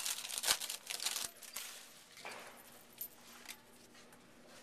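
Football trading cards and their pack wrapper being handled: crinkling with sharp clicks for the first second or so, then quieter, with a couple of light ticks later on.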